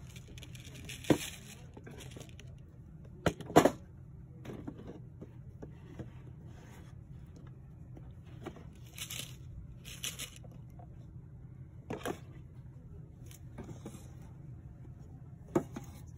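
Scattered clicks and knocks, the loudest a double knock about three and a half seconds in, with a few brief rustles over a steady low hum.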